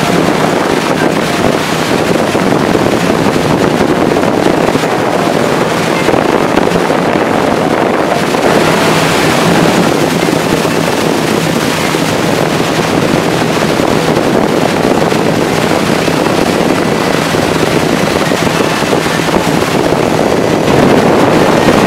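Tour boat under way, its engine running steadily as a low hum beneath loud wind buffeting the microphone.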